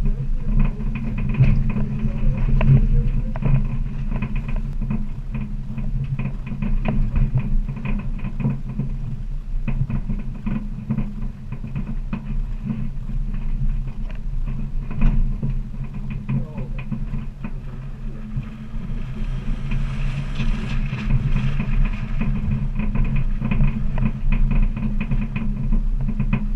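Vehicle engine running steadily at low speed, with frequent knocks and rattles as it crawls over a rocky dirt track.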